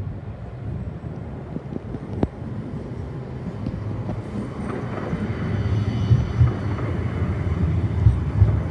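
CAF Urbos 100 tram running on grassed track, approaching and passing close by: a low rumble that grows steadily louder, with a few light clicks and a faint high whine near the end.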